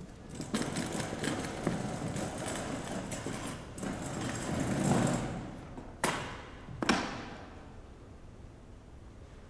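Metal-framed chair scraping and knocking against the stage floor as a dancer moves with it, building to a peak, then two sharp bangs under a second apart that each ring out briefly.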